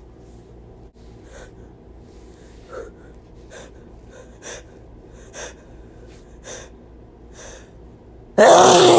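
A person drawing short, sharp breaths in about once a second as a sneeze builds, then letting out a loud sneeze near the end.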